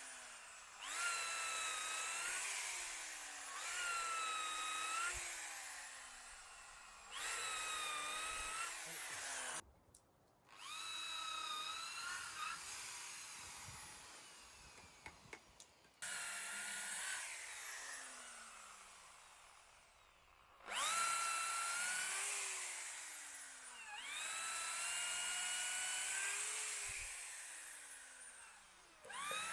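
Electric drill boring spawn-plug holes into hardwood logs for shiitake cultivation. It runs in repeated short bursts, each starting with a quick rising whine as the motor spins up.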